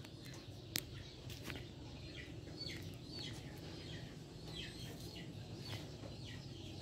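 Birds chirping in the background: short falling chirps, repeated every half second or so, over a low steady hum, with one sharp click a little under a second in.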